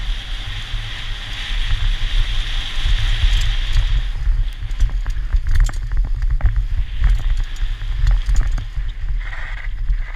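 Wind buffeting the microphone of a helmet-mounted camera on a downhill mountain bike descending a dirt trail, with tyre noise on the dirt and the bike rattling in quick clicks and knocks over the bumps from about four seconds in.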